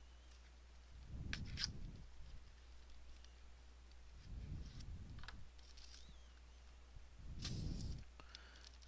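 Trading-card box and packaging being handled and opened: three short bouts of soft thumps and light clicks.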